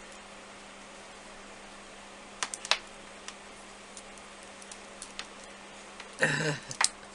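Scattered small sharp clicks and taps from handling a tiny drill bit and Allen wrench, a few at a time with pauses between, over a faint steady hum. A short vocal sound comes near the end.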